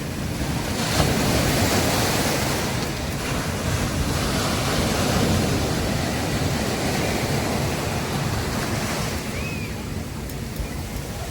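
Sea waves breaking and washing up on a beach: a steady surf hiss and rumble that swells about a second in and eases off a little near the end.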